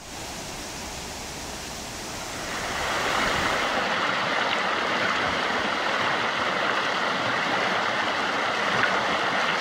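Rushing river water: white-water rapids and a small cascade pouring over a rock ledge, a steady rush that grows louder about three seconds in.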